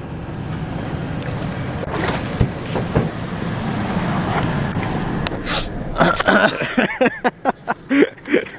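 Pickup truck engine running steadily, with laughing voices over it for the last two seconds or so.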